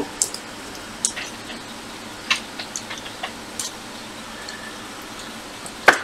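Aluminium foil being pressed and crinkled around a circuit board chip as heat shielding: scattered small crackles and clicks, with a louder crackle near the end.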